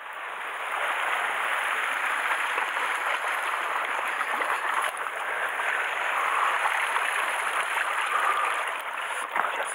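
Sea water washing and foaming over shoreline rocks at the water's edge: a steady wash of surf.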